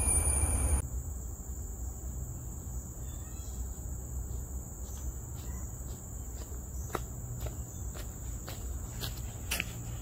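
Steady high-pitched drone of forest insects; a shriller insect note cuts off about a second in. From about halfway, footsteps on a dirt path come closer at about two steps a second.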